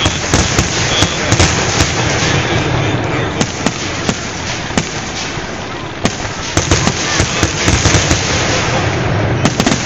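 Aerial fireworks display: shells bursting in quick succession with sharp reports and crackling, their booms echoing, over a continuous rumble of launches and bursts.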